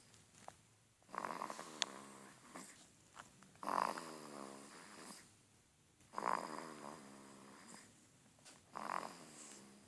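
A baby snoring: four pitched snores about two and a half seconds apart, each lasting a second or two, the second one the loudest.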